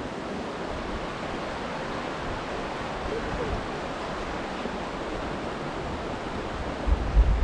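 Creek water flowing, a steady rush of noise. Near the end, wind starts buffeting the microphone with low rumbling.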